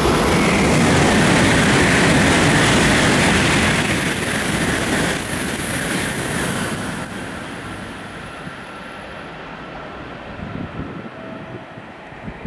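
Tokaido Shinkansen train rushing past at speed: a loud roar of air and wheel noise that starts abruptly and falls away after about seven seconds to a lower steady rumble.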